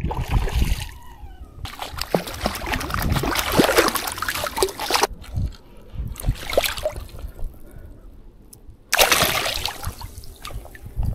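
Water splashing in two spells, the first starting about a second and a half in and lasting some three seconds, the second shorter near the end.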